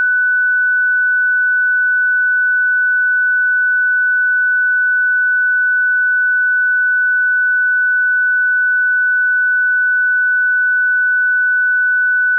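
A single steady, high-pitched electronic pure tone, held unchanging in pitch and level.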